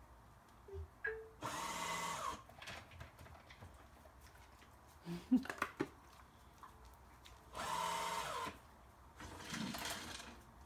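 CleverPet Hub's motorised food pod spinning, three short whirring runs of about a second each, the last two close together near the end. The pod turning is the Hub serving or withdrawing a kibble treat. A few light clicks come in between.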